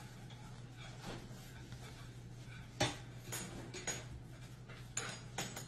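Kitchen clatter: a few sharp clinks and knocks of dishes and cutlery, the loudest about three seconds in, over a low steady hum.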